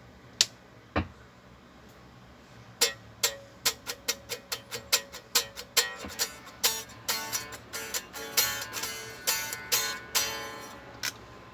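Electric guitar played through a Fractal FM3 amp modeler: a run of picked single notes, coming closer together from about three seconds in, preceded by two sharp clicks and over a faint steady hum. It is a sound test of the unit, working again after its power supply board was replaced.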